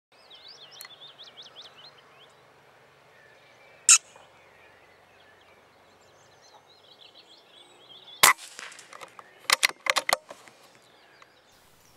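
Birds singing at first, then two sharp air rifle cracks about four seconds apart, the second followed by a quick run of about five clicks.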